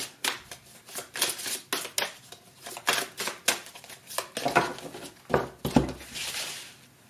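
A deck of tarot cards shuffled by hand: a quick run of crisp card snaps, then a few knocks as the deck is tapped on the table around the fifth second, and near the end a soft swish of cards sliding as they are spread across the cloth.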